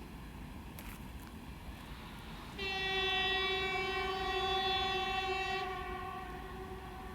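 2TE116 diesel locomotive's horn sounding one long blast of about three seconds, a single steady tone, starting about two and a half seconds in, over a faint low rumble.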